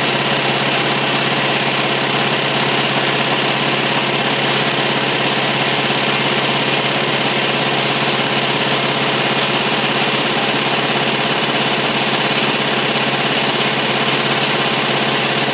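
Air compressor with a freshly rebuilt pump running steadily, pumping up the tank pressure. An even, unchanging machine drone with a hiss across the whole range.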